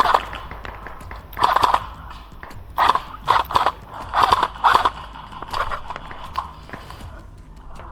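Airsoft electric guns (AEGs) firing a string of short bursts, each a quick rattle of shots, about every half second through the middle of the stretch.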